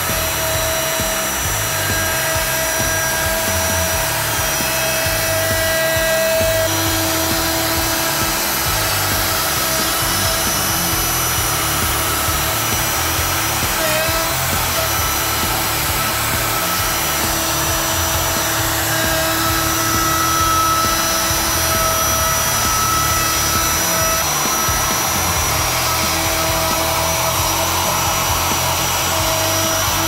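Festool router running steadily as it cuts into a wooden cabinet panel, together with the steady drone of the dust extractor pulling through its hose.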